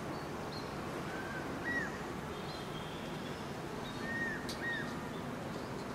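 Kingfisher calling faintly in two pairs of short whistled notes, one pair about a second and a half in and another about four seconds in, over a steady outdoor hiss.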